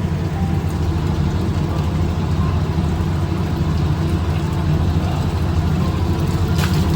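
Steady low roar of a lit gas burner heating a pot of water, with a light clink near the end.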